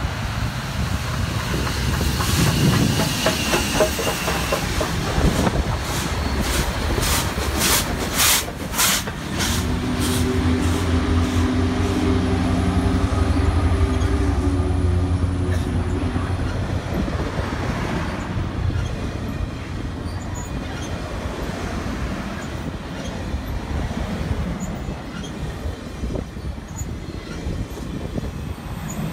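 A Union Pacific steam train passing close by. A run of sharp, evenly spaced beats sounds as the steam locomotive goes past. A diesel locomotive's engine hum follows, and the passenger cars then roll by with wheel clatter on the rails.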